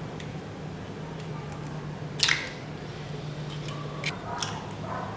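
An egg is cracked against the rim of a ceramic bowl with one sharp crack about two seconds in, then a few small taps as the shell is pulled apart and the egg drops into the bowl. A low steady hum runs underneath.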